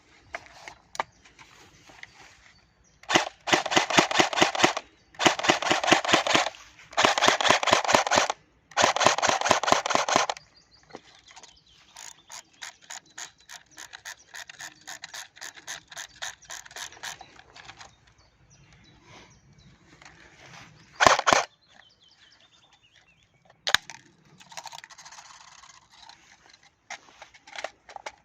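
Airsoft electric gun (AEG) FAMAS F1 Evo firing on full auto: four loud bursts of rapid mechanical clicks, each about a second and a half long. A quieter run of rapid clicking follows, then a couple of single sharp cracks.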